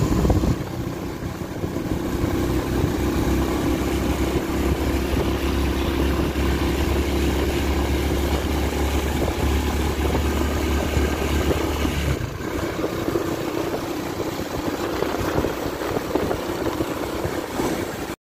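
Motor vehicle on the move: a steady engine hum under road and wind noise. The deepest part of the hum drops away about twelve seconds in, and the sound cuts off suddenly near the end.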